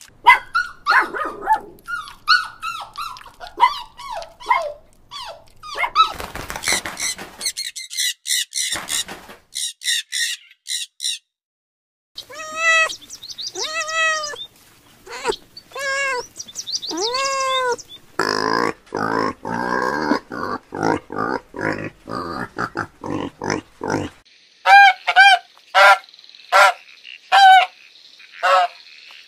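A sequence of animal calls. First come many short high squeals from newborn puppies, then a kitten meowing about five times. Near the end, Canada geese honk in a run of about eight sharp calls, with noisier unidentified animal sounds between these.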